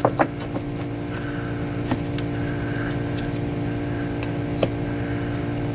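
A steady low mechanical hum in the room, with a few short clicks and rustles of trading cards being handled and flipped.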